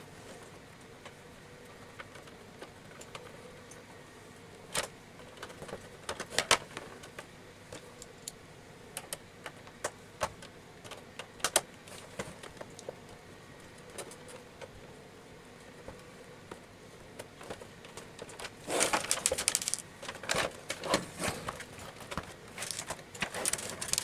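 Small hard clicks, taps and rattles of the printer's plastic parts and screws being handled during disassembly. They come as scattered single clicks at first, then a busier run of clatter near the end.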